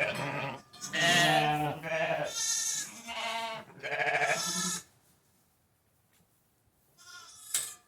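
Sheep bleating: a run of loud, drawn-out bleats over the first five seconds, then a short bleat near the end.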